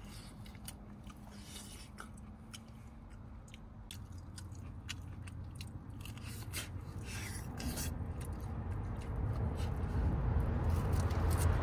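Close crackling and crunching of someone chewing and gnawing on spicy lamb spine bones. A low rumble builds steadily louder toward the end.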